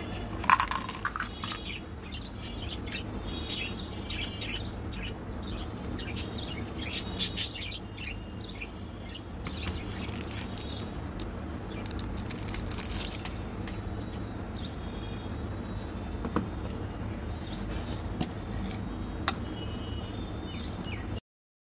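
Small sugar-coated chocolate buttons clicking and tapping as they are handled and dropped into a small clear plastic jar, in scattered sharp ticks, the loudest about half a second in and about seven seconds in. Under it runs a steady low hum, with birds chirping in the background.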